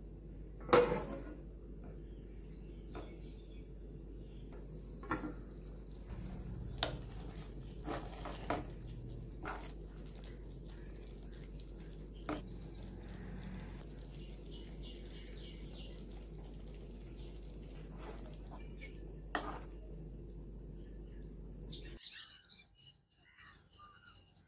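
A glass pot lid set down on a metal kadai with a sharp clink about a second in, then a few light clinks of a steel ladle against the pan over a steady low hum. Near the end a high, rapidly repeating chirping starts.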